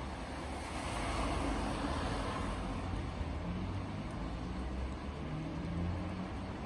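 Low, steady rumble of road traffic, swelling for a couple of seconds shortly after the start as something passes.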